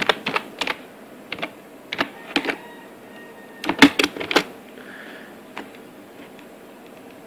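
Computer keyboard typing in four short bursts of a few keystrokes each, over the first four and a half seconds.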